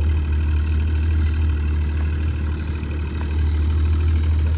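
Boat's outboard motor running steadily at low trolling speed: a deep, even hum with a droning engine note over it.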